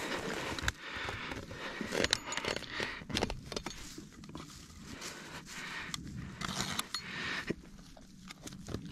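Dry grass crackling and rustling under busy hands, with light metallic clinks and scrapes from a trap's wire being worked loose.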